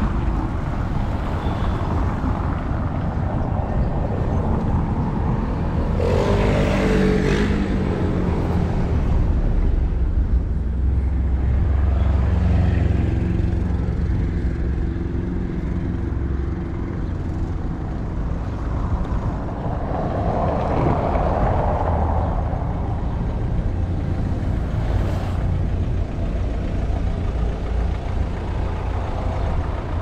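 Road traffic: motor vehicles running and passing, with a deeper engine hum strongest about ten to sixteen seconds in.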